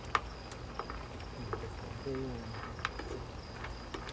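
White plastic spatula scraping and knocking in a nonstick wok while seafood is stir-fried, giving a few sharp clicks over a low steady hum. A faint, high, evenly pulsing chirp runs through it.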